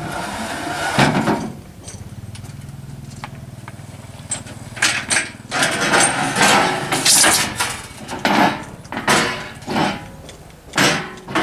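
Engine running at a low, steady idle with an even pulse, then from about four seconds in a string of irregular, loud, noisy bursts over it.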